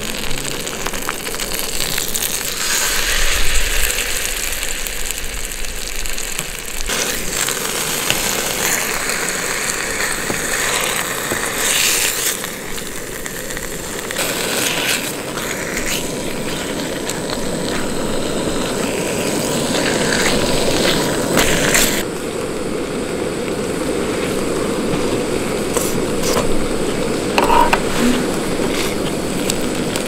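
Beef sizzling and spitting in a hot Trangia frying pan alongside onions, garlic and asparagus, with occasional clicks of metal tongs against the pan.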